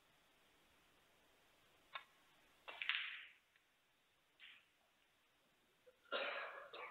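Snooker balls clicking and knocking on a match table: a sharp click about two seconds in, a louder knock with a short clatter around three seconds, a faint blip, and another short clatter near the end.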